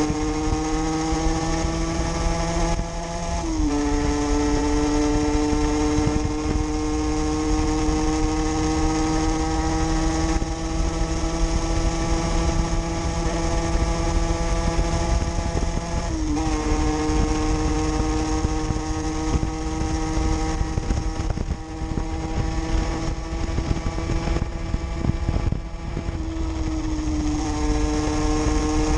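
50cc two-stroke motorcycle engine under way, its pitch slowly climbing through each gear and dropping sharply at upshifts about 3.5 seconds and 16 seconds in, then easing off near the end. A low rumble of wind and road noise runs underneath.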